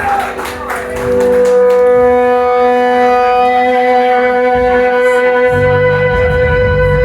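Live band opening a song: one long, steady high note is held over the fading cheers of the crowd, and low bass notes come in about five and a half seconds in.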